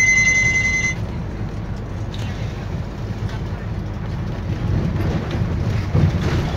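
Cabin noise of a bus driving through city streets: a steady low engine and road rumble, opening with a loud, high, steady beep that lasts about a second.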